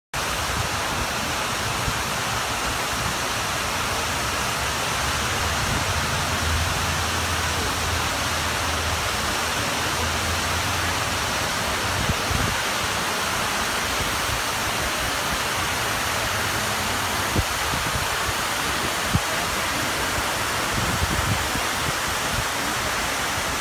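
Water cascading steadily down the granite walls of the 9/11 Memorial's reflecting pools, a constant waterfall rush.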